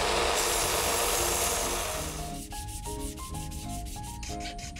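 Belt sander abrading a hickory hammer handle, a steady rasping noise. About two seconds in it drops away, leaving a quick run of short rubbing strokes with light background music notes.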